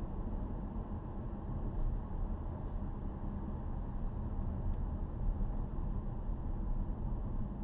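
Steady low road and exhaust drone heard inside the cabin of a 2012 Ford Fusion Sport cruising, its 3.5 L V6 breathing through a stock exhaust with the resonators removed.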